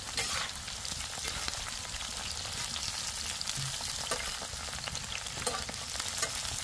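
Cut okra frying in hot oil on a tawa: a steady sizzle with scattered small crackles.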